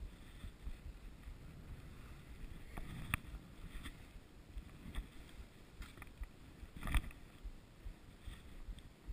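Skis sliding and swishing through fresh powder snow, heard through a chest-mounted camera, with faint irregular low thumps that the uploader takes for the skier's heartbeat. Two sharper knocks come about three and seven seconds in, the second the loudest.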